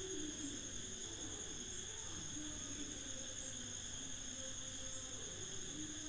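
Crickets chirping: a faint, steady high trill with softer pulses about every half second, over a faint low wavering hum.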